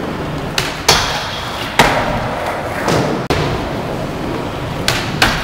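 Skateboard wheels rolling on a ramp deck with a steady rumble, broken by several sharp clacks and thuds of boards striking the surface, each ringing on in a large echoing hall; the loudest come about one and two seconds in.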